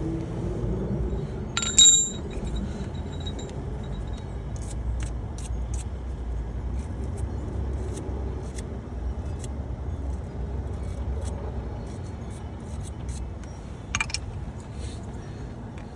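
Hand tools working on a car's wheel-hub bolts. There is a sharp metal clink that rings briefly about two seconds in and another near the end, with light scattered clicking between them, over a steady low rumble.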